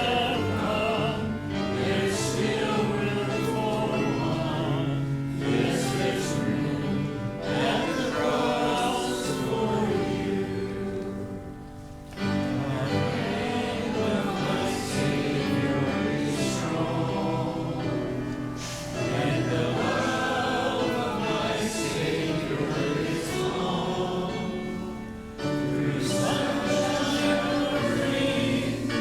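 A congregation singing a hymn together with musical accompaniment, phrase by phrase, with short breaths between lines about 12 and 25 seconds in.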